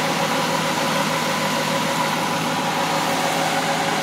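A steady, unchanging machine noise with a faint steady hum running through it.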